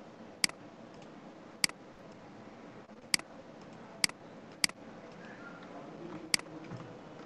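Six sharp computer mouse clicks at irregular intervals, over a low room hiss.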